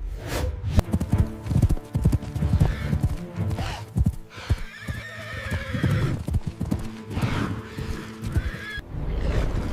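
Quick repeated hoof-like thuds with an animal's high, wavering call about halfway through and again near the end, over background music.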